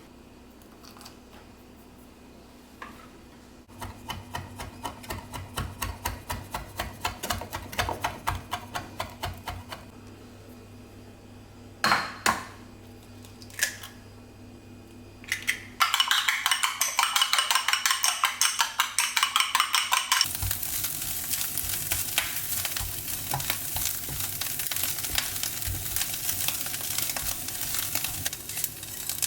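Kitchen cooking sounds: a utensil stirring with a steady rhythm of about three strokes a second, then a couple of sharp clacks. After that comes a loud hiss, which turns into food sizzling and crackling as it fries in a hot pan.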